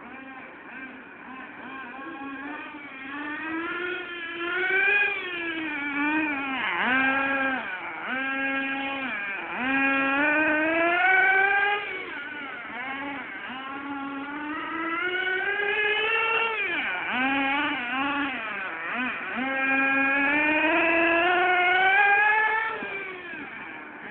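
Small two-stroke nitro glow engine of an RC truggy, revved up and down over and over as it is driven about. Its high-pitched buzz keeps rising and falling in pitch and loudness, with a few sharp dips in pitch.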